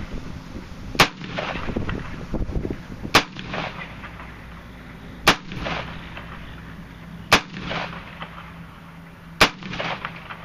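Five single shots from a DPMS AR-15 rifle in .223, fired about two seconds apart. Each sharp crack is followed by a short fading echo.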